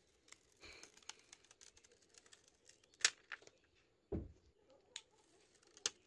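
Clear plastic film being peeled off a phone's glass screen: faint crinkling with scattered sharp ticks, and a dull thump a little after four seconds.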